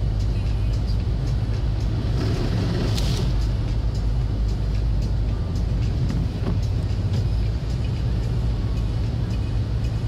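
Steady low rumble of a car's engine and tyres on the road, heard from inside the cabin while driving. About three seconds in, a rushing swell rises and fades as an oncoming vehicle passes.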